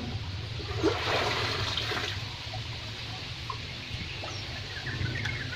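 Water rushing and splashing into a pond for about a second, starting about a second in, over a steady low hum.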